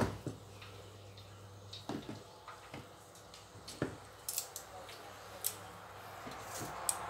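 Scattered light clicks and knocks of household handling, with a few sharp high ticks about four to five seconds in.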